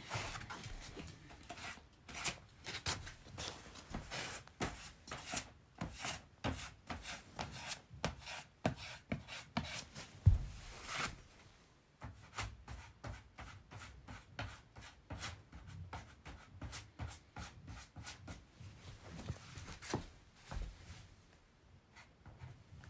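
A flat metal tool scraping along a wooden shoji frame in rapid, even strokes, about two a second, with a brief pause near the middle. There is a heavier knock about ten seconds in.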